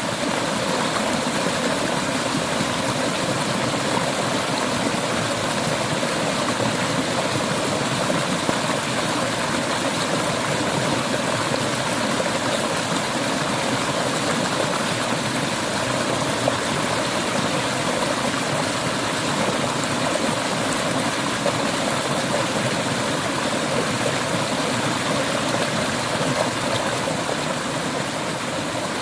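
Clear mountain river water flowing and rushing over rocks: a steady, even rush.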